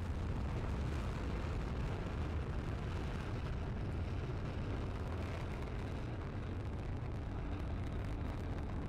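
Falcon 9 first stage's nine Merlin 1D rocket engines firing seconds after liftoff, heard as a steady low rumble.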